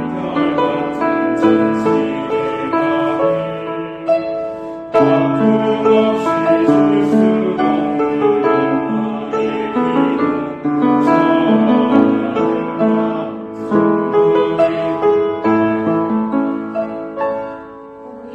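Piano music: chords and a melody played on piano.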